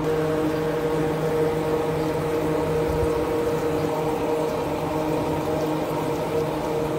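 Broth in a large wok boiling hard, over a steady, even machine hum.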